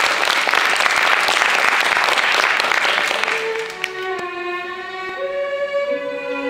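Audience applause fades out about three seconds in, and bowed strings come in playing long held notes.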